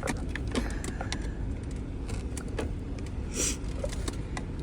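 Scattered light clicks and taps of a screwdriver prying at plastic dashboard trim, over the steady low rumble of the idling minivan.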